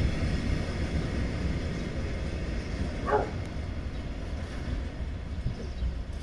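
Freight train of covered hopper wagons rolling away on the rails: a steady low rumble that slowly fades as the train departs. A brief falling squeak stands out about three seconds in.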